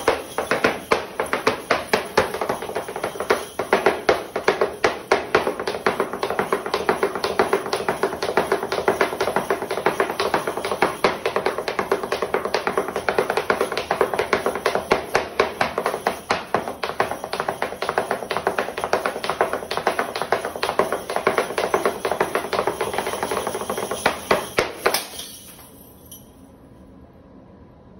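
Flamenco dance percussion: rapid runs of sharp taps over music. It all cuts off sharply about 25 seconds in.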